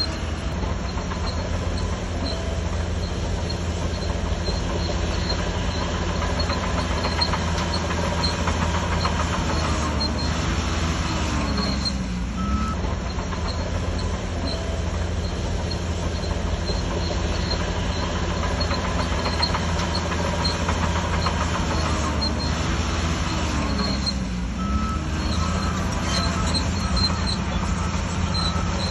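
Shantui DH17C3 crawler bulldozer at work: a steady diesel drone with rattling, squeaking tracks. The engine note dips and recovers about 12 seconds in and again around 23 seconds. Short high beeps sound briefly about 12 seconds in and repeat near the end.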